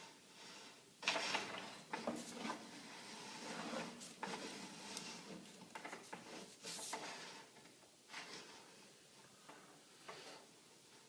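Irregular rustling and light knocks from something being handled, a handful of short bursts a second or two apart.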